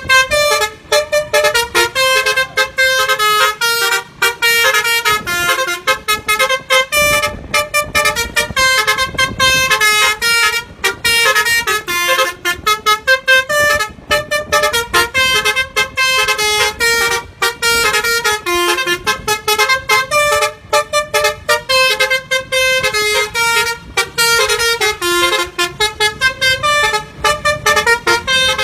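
Telolet basuri multi-trumpet bus horn playing a fast melody of short notes, a World Cup song tune.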